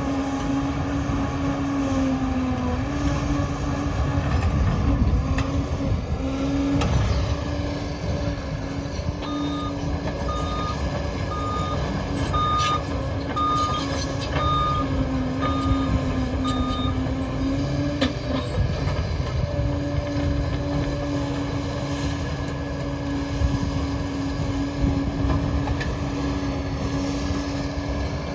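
Liebherr 746 crawler dozer's diesel engine running under shifting load, a steady drone that dips and rises in pitch. About a third of the way in its reversing alarm beeps about once a second, eight times, as the machine backs up.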